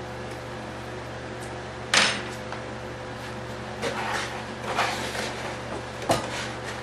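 Handling noises from work on a bench: a sharp knock about two seconds in, rustling and small scrapes around four to five seconds, and another sharp click near the end, over a steady electrical hum.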